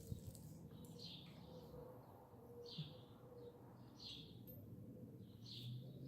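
A small bird chirping faintly: a single short note repeated about every one and a half seconds, five times, over a faint steady hum.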